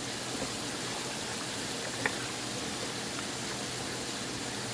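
Pot of vegetable soup simmering on the stove with a steady hiss, and a light clink about two seconds in.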